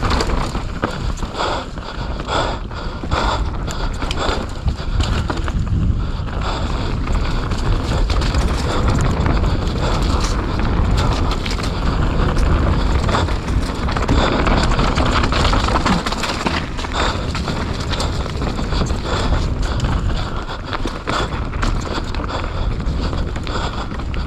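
Mountain bike descending a wet trail at speed: a steady rush of tyres and air, broken by frequent rattles and knocks as the bike goes over bumps.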